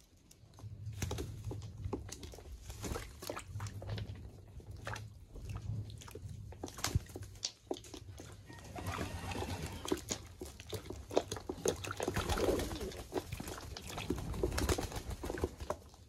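English Modena pigeons bathing: splashing and flapping in water, heavier in the second half, with low cooing in the first half.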